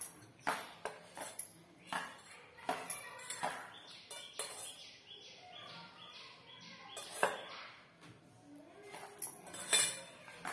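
A hand mixing gulab jamun powder with water in a plastic bowl: irregular light clinks and taps from the bangles on the working wrist and the bowl against the counter.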